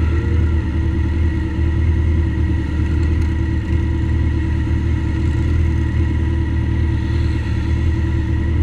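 Motorcycle engine idling steadily up close, a continuous low rumble, while other motorcycles ride slowly past.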